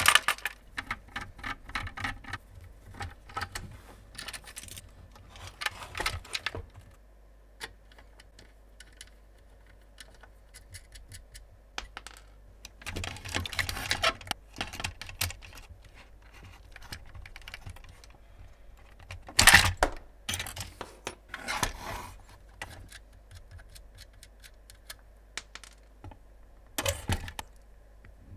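Small plastic and metal RC car parts being handled and fitted by hand: irregular clicks, taps and light rattles as needle-nose pliers and a screwdriver work a ball stud into a shock-absorber mount. The loudest clatter of clicks comes about two-thirds of the way through.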